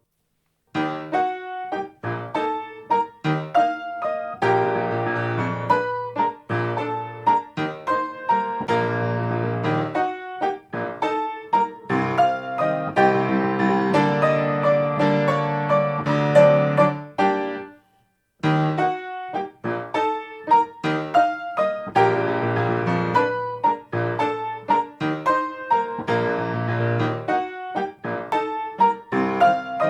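Solo grand piano, a Toyo A-25, playing a waltz: bass notes and chords in a lilting waltz rhythm under a melody. The playing starts after a short silence and breaks off briefly about two-thirds of the way through before going on.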